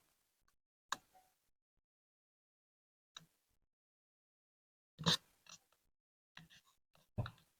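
A few brief knocks and scrapes of objects being handled, spread out, with the loudest cluster about five seconds in.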